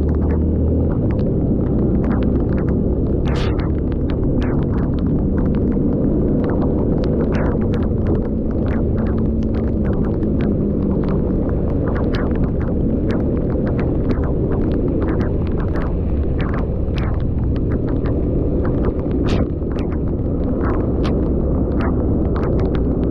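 Rain: many scattered drops tapping close to the microphone over a steady low rumble.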